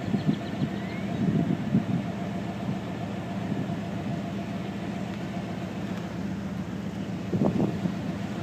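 A vehicle engine idling steadily, with faint indistinct voices briefly near the start and again about seven seconds in.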